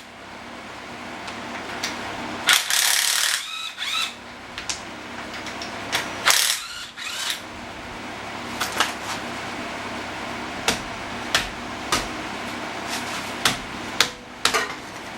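Hand ratchet with a 15 mm socket working a brake caliper bolt: a couple of louder rushes of metal-on-metal noise early on, then scattered sharp ratchet clicks.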